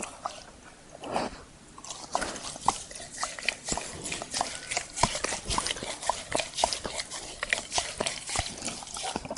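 A dog licking a person's hand: fast, irregular wet laps and tongue smacks, several a second, sparser in the first couple of seconds and then steady and busy.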